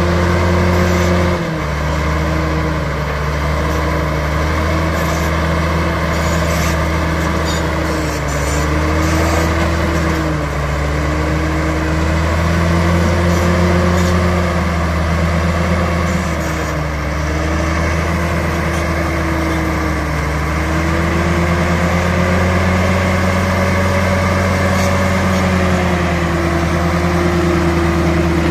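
BEML BD65 crawler bulldozer's diesel engine running hard while the blade pushes a pile of soil, its pitch dipping and recovering several times as it takes up the load.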